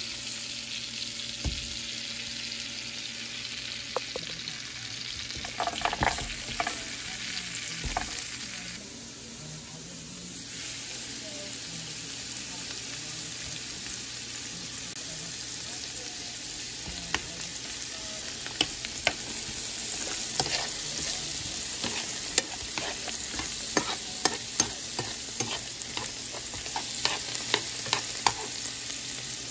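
Butter sizzling in a nonstick frying pan, then diced onion and carrots frying in the butter, with a wooden spoon tapping and scraping against the pan as they are stirred. The spoon's clicks come often in the second half.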